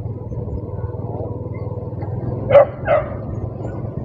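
A dog barks twice in quick succession, about two and a half seconds in, over a steady low vehicle drone.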